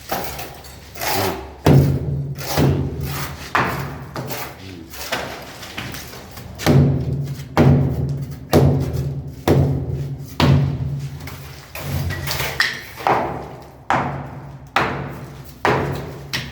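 Repeated hammer blows breaking brickwork, roughly one strike a second at a slightly uneven pace. Each blow is a sharp knock with a short low ring that dies away.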